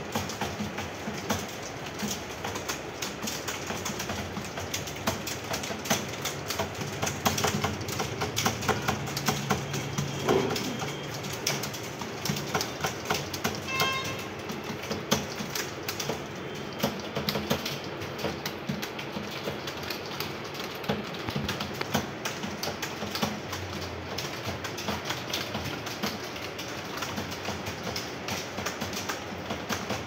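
Many computer keyboards being typed on at once, a dense, continuous clatter of overlapping keystrokes.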